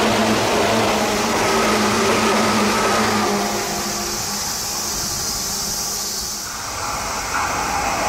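Stainless-steel electric commuter train on the Tokyu Den-en-toshi Line passing through a station without stopping: running noise of wheels on rail with a steady electric hum. It thins out and fades as the last cars go by. About seven seconds in, it gives way to the noise of the next train approaching.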